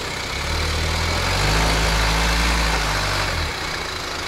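Jeep Wrangler JL Rubicon's engine running at low revs while crawling along a dirt forest track, a low engine note under a steady hiss. The pitch shifts about a second and a half in, and the engine fades out near the end.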